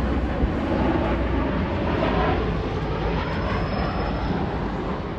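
Jet airliner's engines as the aircraft passes, a loud, steady rush with a faint shifting pitch.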